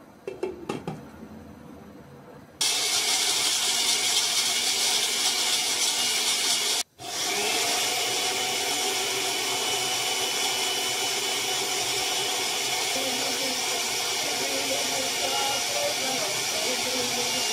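A glass pot lid clinks a few times as it settles onto a stockpot. About two and a half seconds in, a loud steady rushing noise starts abruptly. It cuts out for an instant around seven seconds in, then carries on unchanged.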